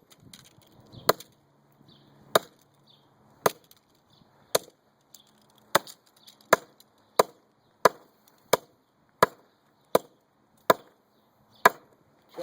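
Sledgehammer blows smashing a digital scale: about thirteen sharp, separate strikes. They come about one a second at first, then speed up to a quicker, steady pounding about halfway through.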